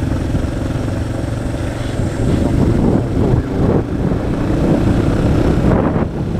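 Yamaha Serow 225's single-cylinder four-stroke engine running steadily while the bike is ridden, with wind noise on the microphone.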